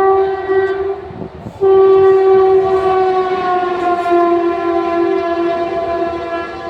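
Indian Railways express train's locomotive horn sounding long continuous blasts: it breaks off briefly about a second in, comes back louder, and drops slightly in pitch about four seconds in.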